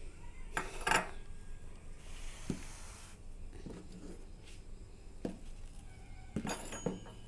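Light clinks and knocks of a steel spoon and kitchen dishes being handled and set down on a wooden table. There is a cluster of sharp clinks about a second in and another near the end, with a few single knocks between.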